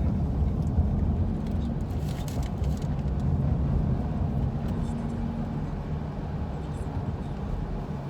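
Low rumble of a car heard from inside the cabin, with a faint steady engine hum and a few light clicks.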